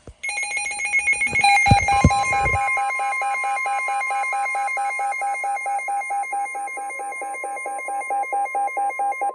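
Weather radio receiver alarm beeping rapidly, with the long steady warning alert tone of NOAA Weather Radio starting about two seconds in beneath it: the signal that a new warning broadcast is about to follow.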